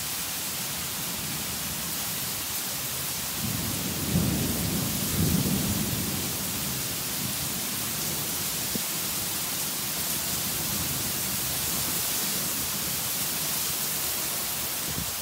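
Heavy rain falling steadily in a thunderstorm, with a low rumble of thunder swelling from about three and a half seconds in and fading away by about six and a half seconds. The thunder follows a big lightning flash seen moments before.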